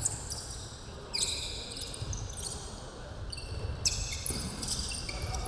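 Basketball game play on a gym floor: sneakers squeaking many times in short high-pitched chirps as players cut and stop, with a basketball being dribbled.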